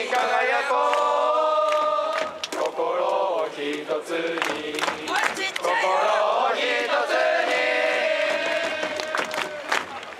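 Japanese baseball cheering section of fans singing and chanting a cheer song in unison, with scattered sharp claps.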